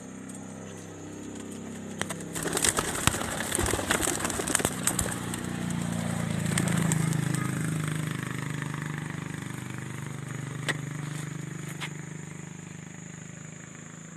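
A vehicle engine running, growing to its loudest about seven seconds in and then easing off. From about two to five seconds in there is a burst of crackling and clicks.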